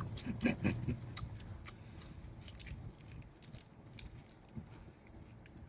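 A person eating: close biting and chewing, with a run of short sharp crunchy clicks in the first couple of seconds that then settles into softer, quieter chewing.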